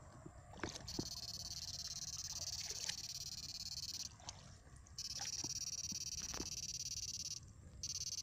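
High-pitched electronic whine from a backpack electrofishing unit, cutting in and out sharply as the probe is switched on and off. Under it are a few small splashes and knocks of wading in shallow water.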